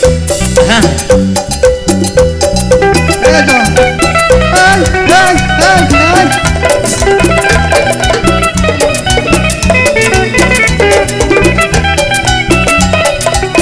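A live cumbia band playing an instrumental passage: timbales and percussion keep a fast, even beat over a pulsing bass, with a lead melody line that bends up and down in pitch.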